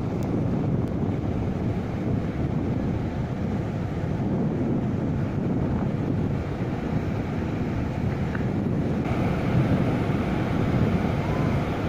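Strong wind buffeting the camera's microphone, a steady low rumble.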